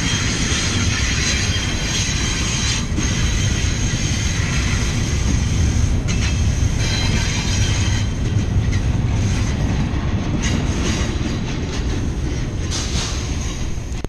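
Double-stack container well cars rolling past at close range: a heavy, steady rumble of steel wheels on rail, with the wheels grinding and squealing against the rails. It drops away abruptly at the very end as the last car clears.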